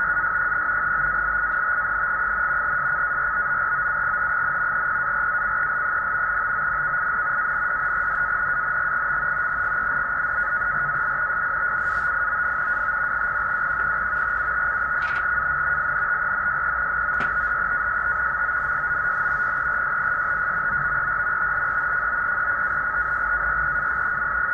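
NAVTEX data broadcast from a Tecsun PL-365 receiver's speaker, tuned to upper sideband: a steady, unbroken high-pitched data tone. It is a live NAVTEX transmission being received and decoded.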